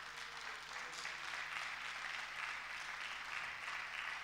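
Congregation applauding: dense, steady clapping that builds over about the first second and then holds.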